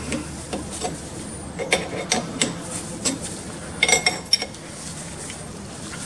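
Steel spanner clinking against the hex of a reusable hydraulic hose fitting as it is turned and repositioned during tightening: a scatter of sharp metallic clinks with brief ringing, bunched about two seconds in and again about four seconds in, the loudest near four seconds.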